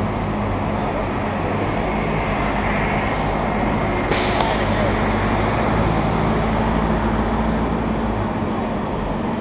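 Steady running of vehicle engines with a constant low hum. About four seconds in, a hiss starts suddenly and carries on over the hum.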